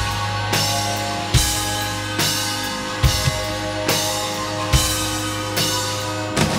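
Rock band playing an instrumental passage with no vocals. The drum kit's kick drum and crash cymbal hit together a little more than once a second, over held guitar and bass chords.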